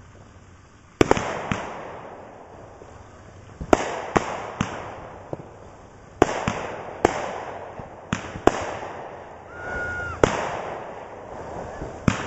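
Aerial consumer fireworks ('Top Secret') firing: about a dozen sharp bursts, several in quick pairs or threes. Each burst is followed by a fading crackling hiss.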